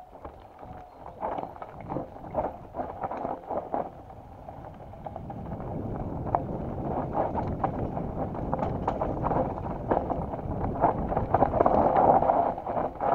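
Mountain bike descending a steep, rough dirt trail: frequent knocks and rattles from the bike jolting over roots and stones, with tyre and wind noise growing louder from about five seconds in as speed builds.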